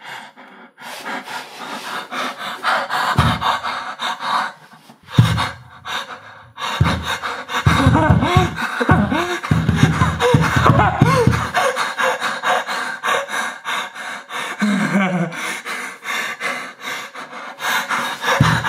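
Horror soundtrack of breathy gasps and pants over a fast clicking pulse. Deep bass thumps hit about three and five seconds in, then a dense run of them with wavering gliding tones from about seven to eleven seconds.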